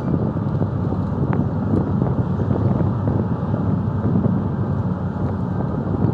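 Wind buffeting the microphone over the steady low drone of a boat's engine running underway.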